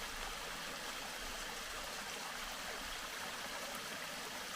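Steady rush of water from a small cascading waterfall, an even hiss with no breaks.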